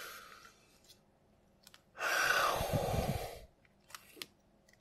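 A few faint plastic clicks of a pin-studded Rubik's Cube being turned one-handed. About two seconds in comes a loud rushing noise lasting about a second and a half.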